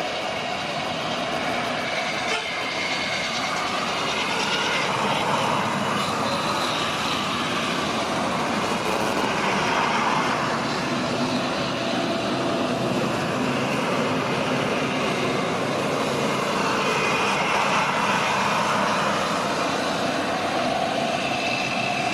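Boeing 787-8 Dreamliner's twin turbofan engines running at taxi thrust: a steady jet rush with a faint whine that swells and eases a little.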